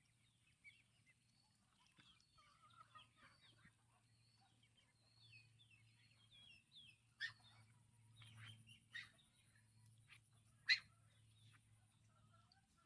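Ducks calling faintly: many short, quick calls, with a few louder sharp calls about seven, nine and eleven seconds in.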